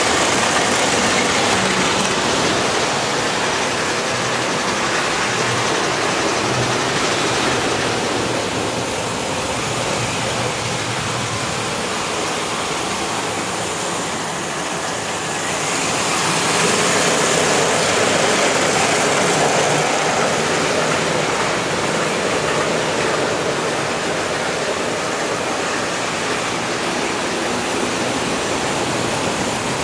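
S-gauge model trains running on the layout's metal track: a steady rush of wheels and motors that swells a little about halfway through.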